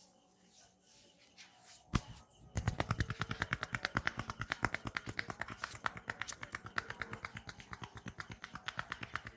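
Massage tapping: a barber's hands striking the client in a rapid, even patter of sharp claps, starting about two and a half seconds in, after one lone click.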